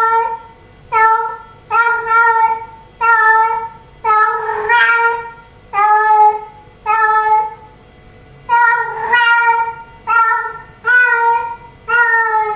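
Female domestic cat in heat calling for a tomcat: a rapid string of loud, pitched meows about one a second, with a short pause partway through.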